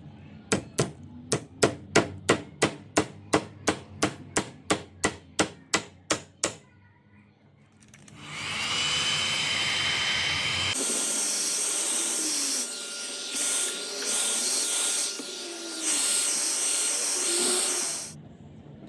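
A quick, even run of about twenty sharp knocks, around three a second. After a short pause comes a loud steady hissing whir with a faint high whine, which changes about three seconds after it starts and cuts off near the end.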